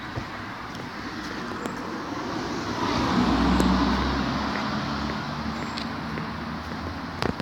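A motor vehicle passes on the road, growing louder to a peak about halfway through and then fading away.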